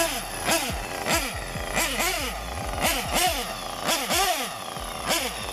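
Nitro RC buggy's small two-stroke glow engine revved in quick repeated throttle blips, about two a second, each one rising and falling in pitch.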